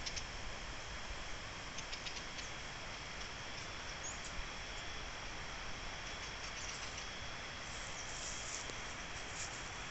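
Atlantic Forest ambience: a steady, thin, high insect drone with scattered short, high chirps and squeaks over a low rumble.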